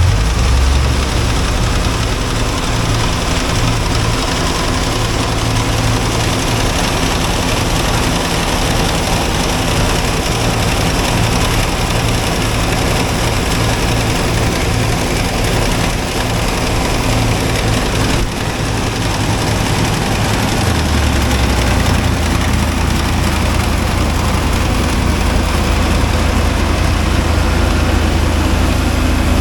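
Heavy farm-machinery engine running steadily through wheat harvest, with a brief dip in level about eighteen seconds in and a change in its low hum a few seconds later.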